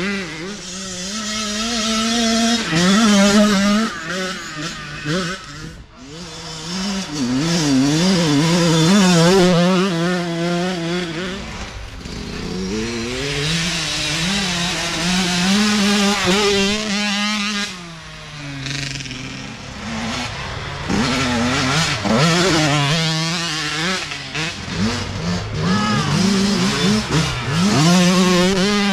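Youth dirt bike engines racing past one after another, their pitch climbing and dropping again and again as the riders work the throttle. Several bikes swell louder as they come by, with one passing close near the end.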